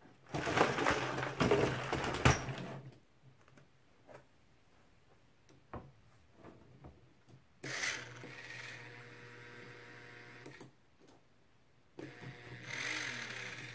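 Plastic bucket holding dried clay and fist-sized rocks set down on the ball-mill frame, the rocks and clay rattling inside for a couple of seconds. About eight seconds in, and again near the end, the small electric drive motors whir steadily for a few seconds at a time, nowhere near strong enough to turn the loaded bucket.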